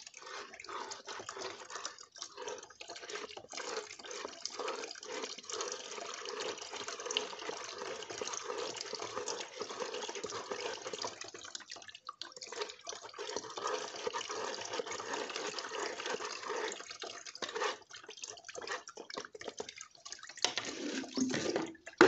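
Dark liquid poured from a plastic jug into a strainer, splashing and trickling through into a basin below: fermented poultry-manure tea being strained. The pour stops briefly twice, and it ends in a sharp knock.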